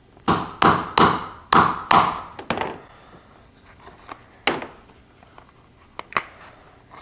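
A hammer striking a circular hole punch to cut a hole through a rubber gasket: five sharp knocks in about two seconds, then a few lighter taps.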